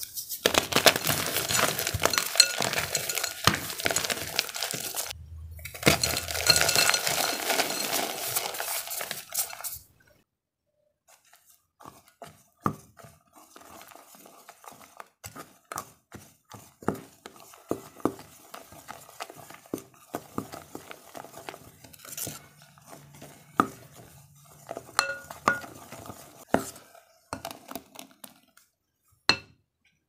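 Blocks of homemade gym chalk crunched and crumbled by hand in wet dye, a dense crackling crunch for about ten seconds with a short break halfway. Then a spatula stirs the dyed chalk powder in a glass bowl, with soft scraping and scattered light clinks and taps against the glass.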